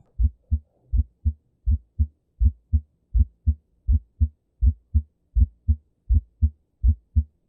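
Recorded heart sounds repeating in a steady lub-dub rhythm, about ten cycles of low, dull thumps. The first sound (lub) is split into two close components, mitral then tricuspid closure, as heard in right bundle branch block.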